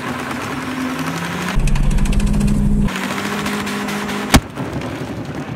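BMW E36's small 1.6-litre four-cylinder engine held at high revs while the rear tyres spin and smoke on grass. For about a second and a half it rises into a louder, rapid stuttering, and a single sharp bang comes near the end.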